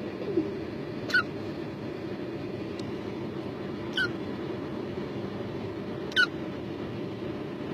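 Three small, sharp hiccups, about two to three seconds apart, over a steady low hum.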